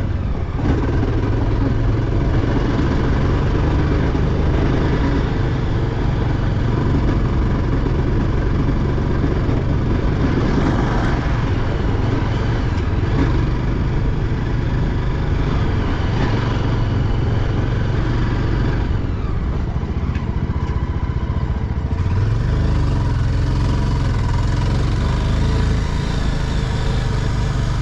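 A motor vehicle's engine running steadily, with a continuous low rumble throughout.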